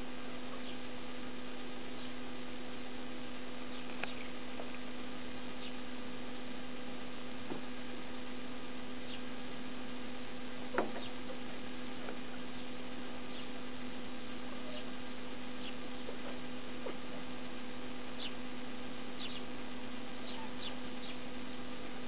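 A steady electrical hum of one even pitch with a higher overtone. Faint short ticks and small high chirps are scattered over it, and one sharper click comes about halfway through.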